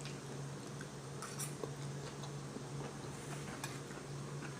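Eating sounds: faint chewing with a few small clicks of cutlery on a plate, over a steady low hum.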